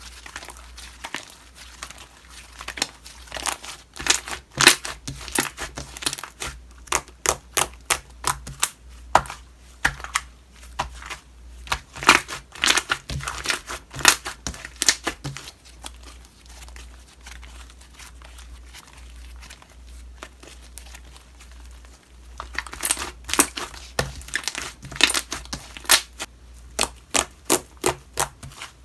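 Homemade slime being pressed and stretched by hand, giving quick crackling pops and clicks in two busy stretches with a quieter spell in the middle.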